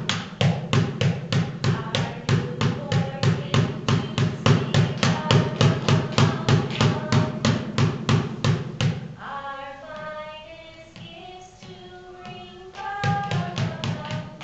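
Children singing to music with a steady drum beat of about three to four beats a second. The beat drops out about nine seconds in, leaving the voices alone, and comes back for the last second or two.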